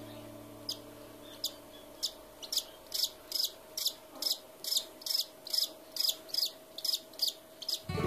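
A baby cockatiel chick giving short, high begging chirps. They come sparsely at first, then settle into a steady run of about two to three a second.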